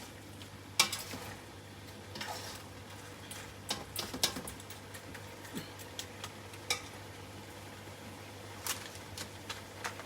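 Shrimp frying in butter and garlic in a pan, a soft steady sizzle with a low hum under it. A utensil clinks against the pan several times.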